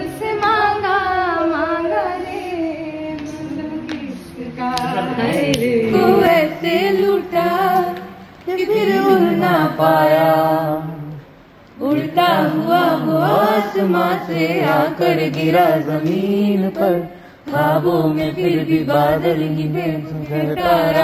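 A woman singing unaccompanied, her voice wavering with vibrato, breaking off briefly between phrases.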